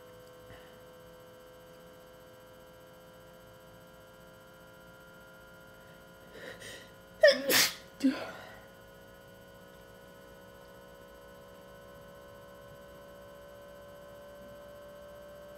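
A person sneezing during an allergy attack: a soft catching breath about six seconds in, then a loud sneeze and a smaller one right after it. A faint steady hum runs underneath.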